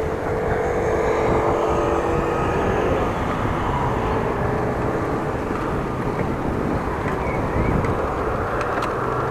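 Steady rushing of wind on an action-camera microphone and rolling road noise while cycling, with a humming tone through the first three seconds.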